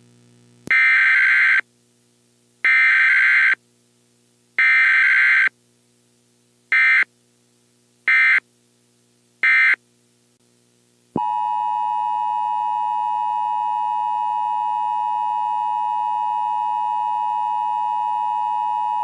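Emergency Alert System tones: three long buzzing SAME data bursts, then three short ones, followed about eleven seconds in by the steady two-tone attention signal.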